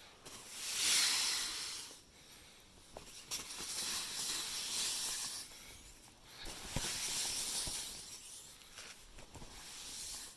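A hissing noise that swells and fades four times, each swell lasting one to two seconds, with a few faint clicks in between.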